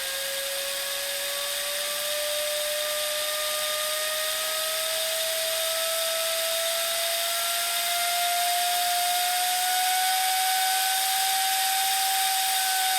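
Compressed air from a tank compressor hissing and whistling through a laser cutter's air-assist line. The whistle rises slowly and steadily in pitch and grows a little louder as the flow is turned up toward 6.6 metres per second.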